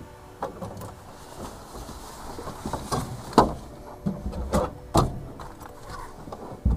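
Irregular clicks, knocks and rustling from gear being handled in a small aircraft's cockpit, with a sharper knock about halfway through.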